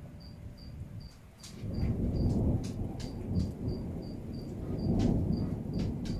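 Thunder rumbling, starting about a second and a half in and swelling twice, over a cricket chirping steadily about two and a half times a second.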